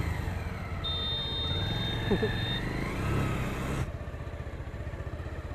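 Bajaj Pulsar motorcycle's single-cylinder four-stroke engine running under way, with wind noise. About four seconds in, the sound drops suddenly to a quieter low engine note as the bike rolls slowly.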